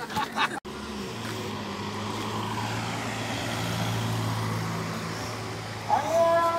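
Road traffic: a car passing on the street, a steady low hum that swells in the middle and eases off again. Near the end a loud, pitched blown-horn tone starts, sliding up briefly and then holding.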